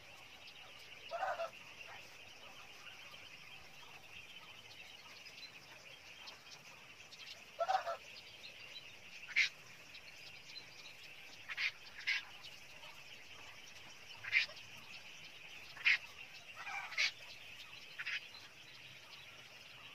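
Caged quail giving short, sharp high calls every second or two, over a faint steady high-pitched background.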